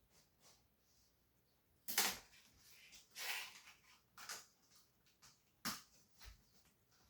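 Plastic Lego train track pieces being handled and fitted together: a handful of scattered sharp clacks and knocks, with a short scrape about three seconds in.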